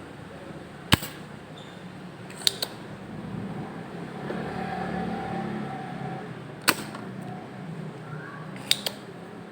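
Sharp, loud tool clicks at a workbench, six in all, two of them in quick pairs, made while rusty resistors are being removed from an amplifier circuit board; a steady low hum runs underneath.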